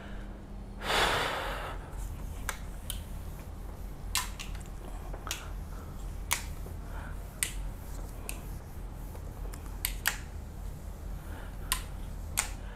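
A whiteboard being wiped clean by hand: a loud rush of noise about a second in, then scattered sharp clicks and taps.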